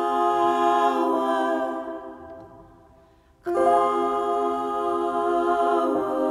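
Music: a held wordless vocal chord, hummed a cappella. It fades out about two seconds in, and a new held chord comes in sharply a little past halfway.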